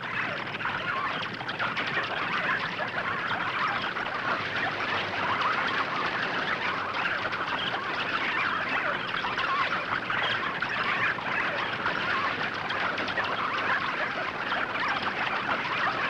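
A swarm of bats: a dense, unbroken mass of high squeaking and chittering that holds steady.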